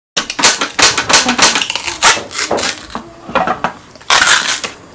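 Dense crinkling, crackling and clattering of takeout packaging and containers being handled at the table, with a louder burst of rustling about four seconds in.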